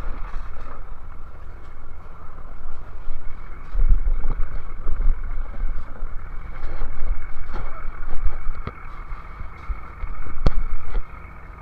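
Fishing boat's engine running steadily, with wind buffeting the microphone in low rumbling gusts and scattered sharp knocks.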